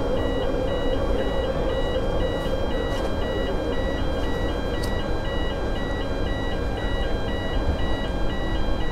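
Repeating electronic warning alarm stepping between two tones in an even pattern, sounding while a Sunseeker 90 Ocean yacht's powered folding transom moves, over a steady low hum.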